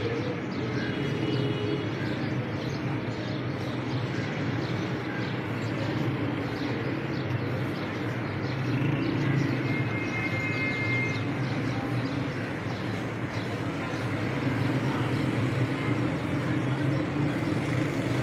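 Steady outdoor street background noise, mostly a continuous traffic rumble, with a few faint high tones.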